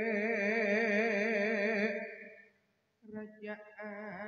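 A male vocalist sings unaccompanied through a microphone, holding one long note with a wide, fast vibrato that fades out about two seconds in. After a brief silence he starts another wavering, ornamented phrase.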